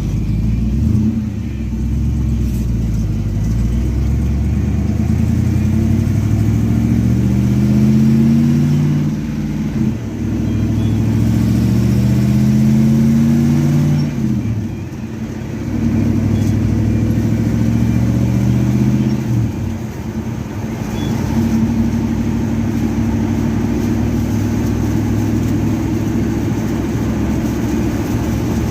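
A 1970 Chevelle's engine on a Holley 850 double pumper carburetor, its pitch climbing slowly and dropping sharply three times, then running at a steady speed. The carburetor has just been given power valves to cure a lean primary side.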